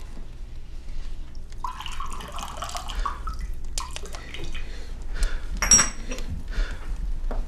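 Whiskey poured from a bottle into a glass, a liquid stream running for about two seconds, followed by a few sharp glass clinks.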